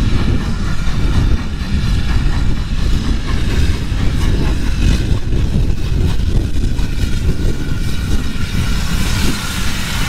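SE&CR No 65 steam locomotive and its train arriving at low speed, with a steady heavy rumble of the engine and coaches on the track.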